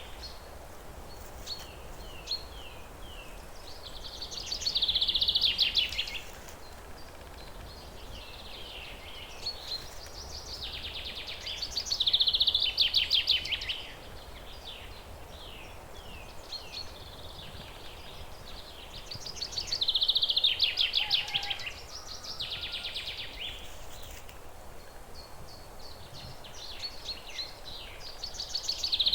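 Birds singing outdoors: one bird repeats a loud, fast trilling song phrase four times, about eight seconds apart, with short chirps from other birds between, over a low steady background hiss.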